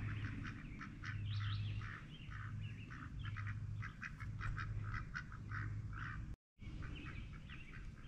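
Duck calling in a rapid run of short, harsh calls, several a second, with brief pauses.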